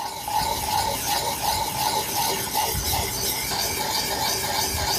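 Water-lubricated sharpening puck rubbed in circular strokes against the bevel of a drawknife: a steady abrasive rubbing of stone on steel that swells and fades with each stroke.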